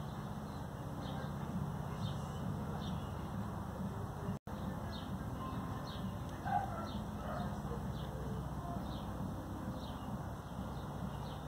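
Short, high chirps repeating about every two-thirds of a second, typical of a small bird, over a steady low outdoor hum. A brief louder call sounds about six and a half seconds in.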